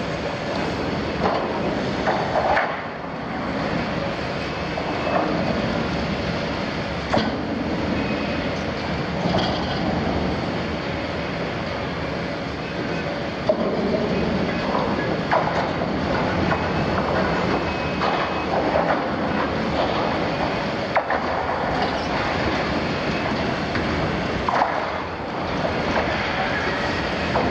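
Liebherr 974 demolition excavator running under load while its jaw attachment tears and crushes the steel plate of a double-walled oil tank. Steady machine noise runs under metal grinding, brief high squeals and sharp clanks here and there, the loudest clank about 13 seconds in.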